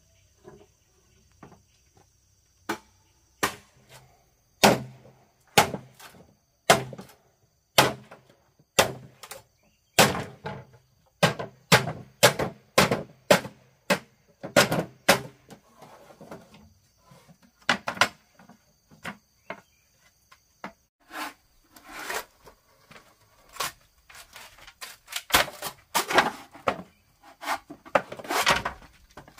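A hand tool striking bamboo in a steady run of sharp knocks, about one or two a second, the blows coming thicker and more rattling near the end.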